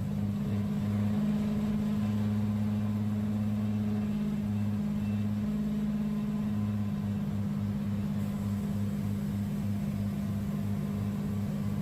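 Wood-Mizer band sawmill running, a steady low engine hum with a pulsing undertone.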